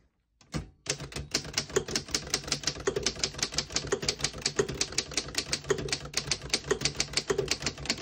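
A 1935 Underwood No. 11 desktop typewriter being typed on: a fast, even run of typebars clacking against the platen, starting about a second in.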